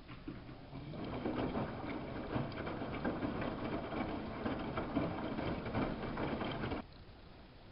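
Samsung WF71284 front-loading washing machine running a wash: water noise in the drum that grows louder about a second in and cuts off suddenly near the end.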